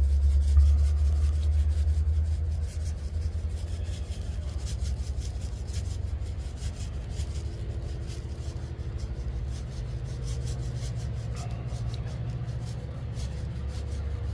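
Salt being dispensed over raw pork chops: a run of quick, irregular, scratchy ticks. A low rumble underneath is loudest at the start and fades over the first few seconds.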